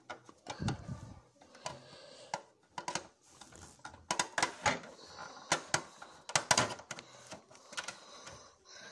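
A plastic toy dollhouse door and toy figures being handled: a run of irregular clicks and knocks, some sharp, loud enough to draw the remark "Why is this door so loud?"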